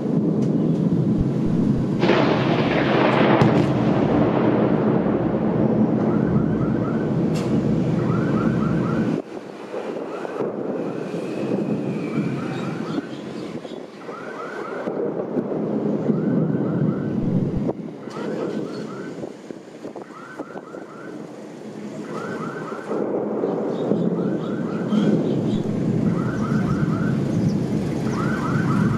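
Thunder rumbling, with a louder peak about two seconds in that fades over the next couple of seconds. Over it, a short chirping sound repeats about every second and a half from about six seconds in.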